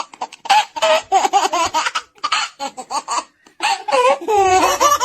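High-pitched cartoon voice laughing in a long run of quick, repeated bursts, gliding up and down in pitch near the end.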